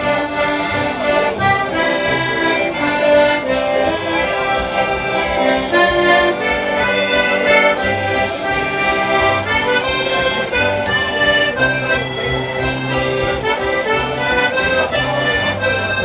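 Accordion playing an instrumental tune, melody and chords over changing bass notes.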